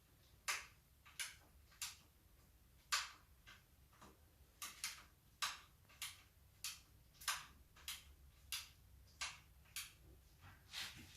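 Rebuilt Marzocchi 888 RC3 suspension fork being pumped through its travel, giving a short faint swish with each stroke, repeating about every half second or so.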